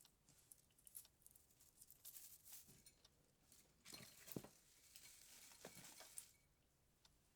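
Soft, irregular rustling and crinkling with small sharp clicks, as Christmas tree decorations are handled. It is busiest in the middle and dies down near the end.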